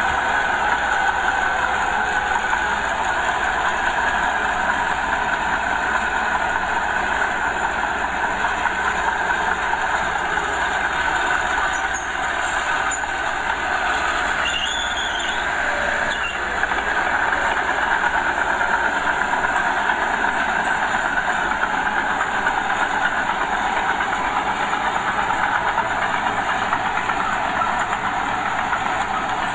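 Small Komatsu bulldozer working, its diesel engine running steadily under load, with the clatter of its tracks.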